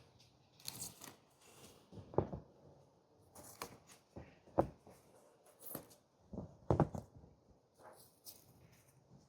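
Pins being pulled out of a blocking mat and a knitted sweater being handled: irregular small clicks and rustles, about one a second.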